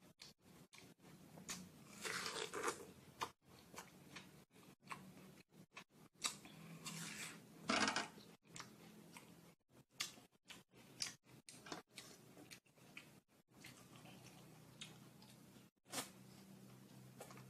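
A person biting into and chewing watermelon, in irregular wet mouthfuls that are loudest about two and eight seconds in.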